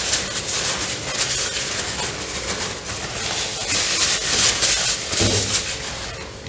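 Paper napkin crinkling and rustling, rubbed and crumpled between the hands close to the microphone, with a brief low thud about five seconds in.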